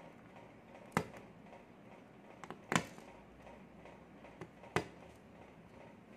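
Brittle brown-sugar dalgona candy cracking and snapping as a needle pries around the stamped flower shape: three sharp cracks, about a second apart and a couple of seconds apart, with a few fainter ticks between them.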